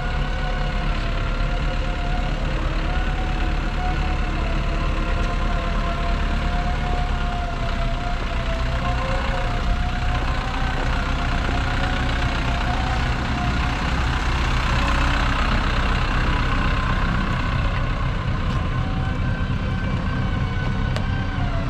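Hyundai HD65 light truck's diesel engine idling steadily: a continuous low rumble with a thin whine above it that wavers slightly in pitch.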